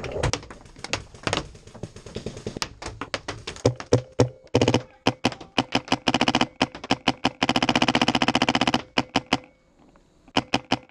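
Paintball marker firing: scattered single shots at first, then several fast strings of shots, the longest lasting about a second past the middle, a brief lull, and another rapid string at the end.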